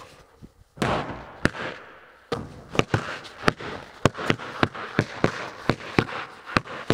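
A basketball shot striking the hoop with a loud, echoing bang about a second in, then basketballs dribbled on a concrete floor at about three bounces a second, each bounce ringing off the bare metal walls.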